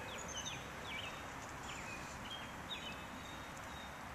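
Small birds chirping outdoors: many short, quick, falling chirps, several to a second, over a steady background hiss of outdoor air.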